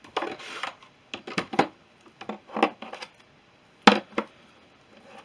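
A cordless tool's battery charger being unpacked and handled: a short rustle of packaging, then a series of plastic clicks and knocks, the sharpest a pair of knocks about four seconds in.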